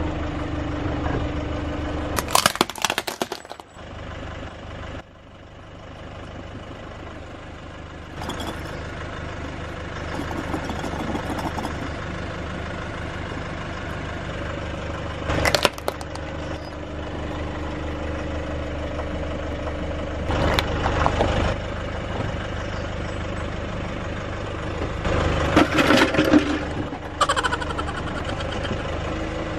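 A car engine idling steadily while its tyre crushes plastic toys, with loud cracks and crunches about two seconds in, once in the middle, and in a cluster near the end.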